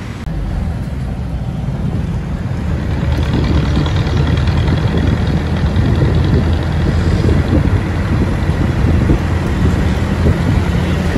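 Steady low rumble of a moving vehicle's engine and road noise, with wind buffeting the microphone; it grows louder about three seconds in.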